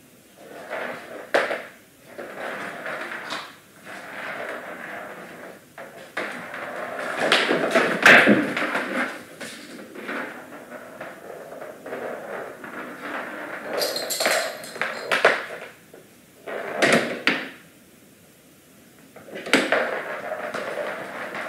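A young bobcat knocking and pushing toys around on a vinyl floor: irregular knocks, scrapes and rattles that come in clusters, loudest about eight seconds in, with a few sharp knocks near the end.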